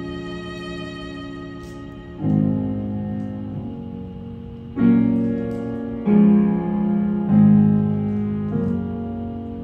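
Stage keyboard playing a slow piano part, a new chord struck every one to two seconds and left to ring, with a held string chord fading under it in the first couple of seconds.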